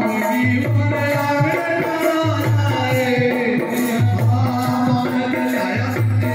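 Harmonium playing a devotional bhajan melody in sustained reedy chords, over a steady, regularly repeating hand-drum beat.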